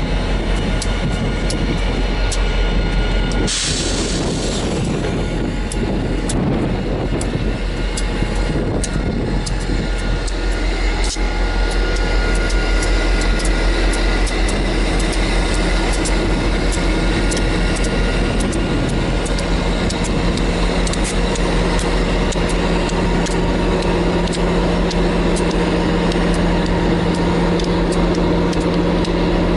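Steady running noise of a moving vehicle, with frequent small clicks and rattles. There is a brief rush of noise about three and a half seconds in, and a steady low hum joins about two-thirds of the way through.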